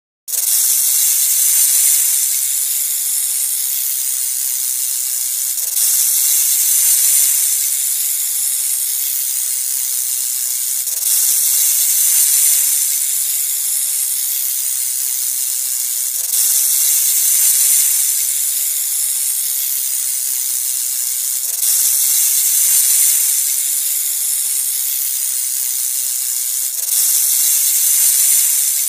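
Snake hissing: a continuous high, airy hiss that swells louder about every five seconds.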